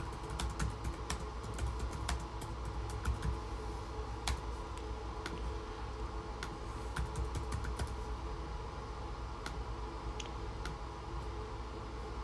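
Typing on a MacBook Air laptop keyboard: irregular key clicks, busier in the first few seconds and sparser after. A steady low hum runs underneath.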